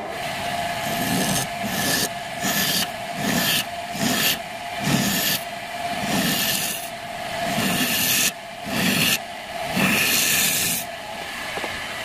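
Wood lathe running with a steady hum while a tool or abrasive is pressed against the spinning wood in about a dozen repeated rubbing, scraping strokes, the last one longer.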